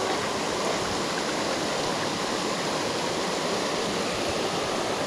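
Creek water rushing, a steady even hiss of flowing water.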